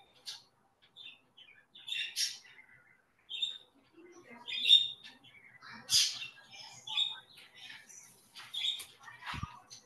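A bird chirping in a series of short, separate calls, about eight to ten of them.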